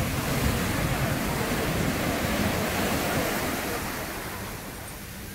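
Ocean surf: a wave breaking and its foam washing up the beach, a steady rush that eases off over the last couple of seconds.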